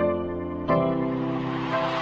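Outro background music: sustained piano or keyboard chords, a new chord struck about two-thirds of a second in, with a rising hiss swelling underneath.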